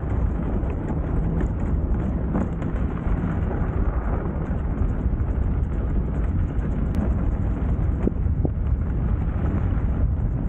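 Steady rumbling noise from an e-bike riding along a snow-covered road: wind buffeting the microphone over the knobby tyres rolling on packed snow.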